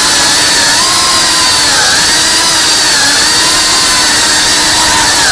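3.5-inch cinewhoop FPV quadcopter's brushless motors and propellers whining loudly, the pitch wavering up and down with throttle changes.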